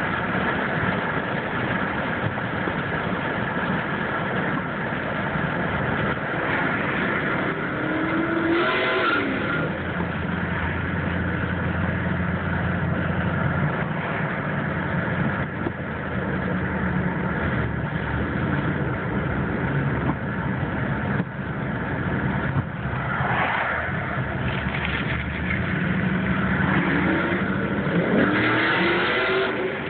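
Vehicle engines running with road noise, heard from inside a car. The engine pitch climbs, as when revving up under acceleration, about a third of the way in and again near the end.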